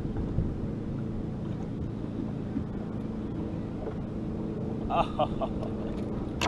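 Steady low hum from a bass boat's motor.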